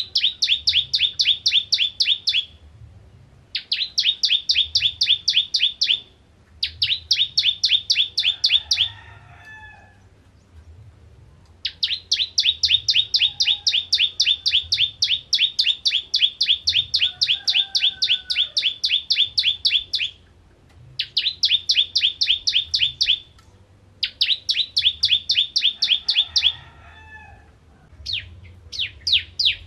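Caged prinia singing loudly: fast trills of one note repeated several times a second, in bouts of two to three seconds with short pauses, and one long run of about eight seconds in the middle.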